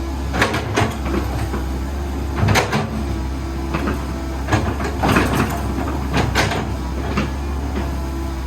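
Komatsu PC138US-8 excavator's diesel engine running with a steady low hum. A series of sharp metallic clanks and creaks sounds over it, about six loud ones.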